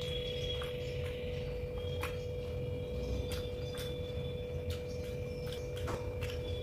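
Eating sounds: chewing and scattered wet mouth clicks as biryani is eaten by hand, with fingers working through the rice on the plate. A steady hum runs underneath throughout.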